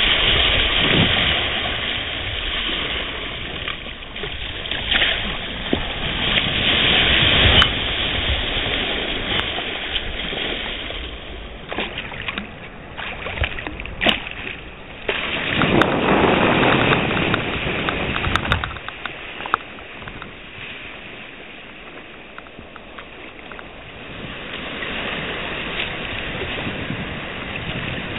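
Sea water rushing and splashing around a kayak's hull and paddle as it rides small surf. The noise comes in surges, with a quieter stretch about two-thirds of the way in.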